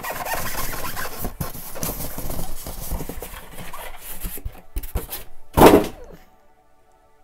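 Styrofoam packing insert being pulled out of a cardboard box: irregular rubbing and scraping of foam against cardboard with many small clicks, and one louder scrape or thump about five and a half seconds in before it goes quiet.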